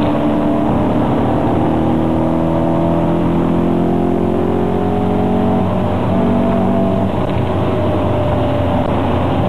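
Car engine heard from inside the cabin under hard acceleration at highway speed, its pitch climbing steadily, dropping at a gear change a little past halfway, then climbing again, over road and wind noise.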